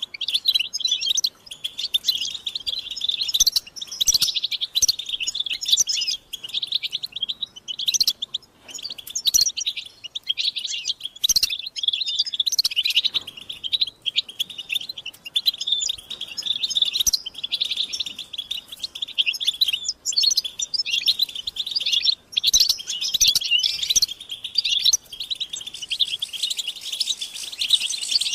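European goldfinches twittering, with rapid, dense liquid chirps and call notes that go on without a break. This is the excited group twitter of mating and readiness calls that keepers use to stimulate males to sing.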